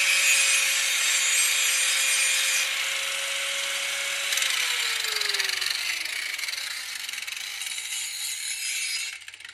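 Electric angle grinder grinding the edge of a steel lawn mower blade to sharpen it, a harsh steady grinding with the motor's whine. A little over four seconds in the motor's pitch starts falling steadily as it winds down, and the grinding noise dies away near the end.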